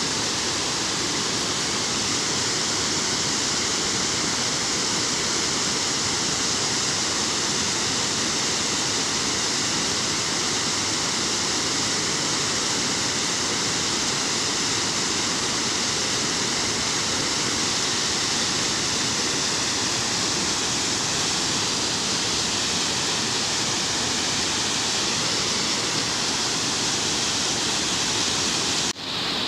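Water pouring under a steel sluice gate and down a concrete dam spillway: a steady rush of falling water, briefly cutting out just before the end.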